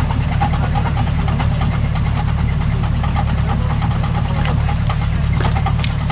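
Off-road 4x4's engine running steadily at idle, with a fast even pulsing throb.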